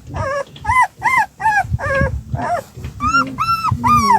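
Newborn puppies crying in a quick run of short, high-pitched cries, about three a second, some overlapping, over low rustling.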